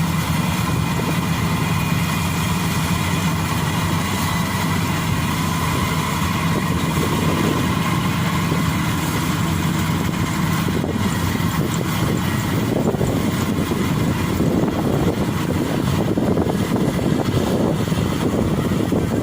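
Rice combine harvester running steadily in the field. It is a continuous engine hum with a steady drone in the first half, then turns rougher and noisier about two-thirds of the way through.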